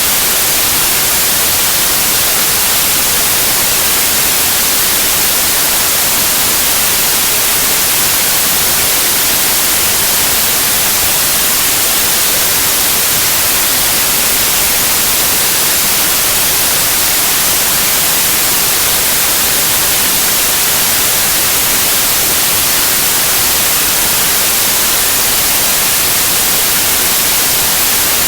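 Steady white noise: an even, unbroken hiss, brightest in the treble, that does not change.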